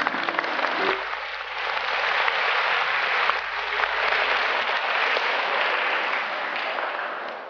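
Large audience applauding, dense clapping that swells about two seconds in and dies away near the end.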